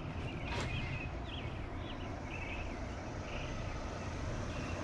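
Outdoor ambience: a steady low rumble, with short high chirps, like a small bird calling, repeating several times over it.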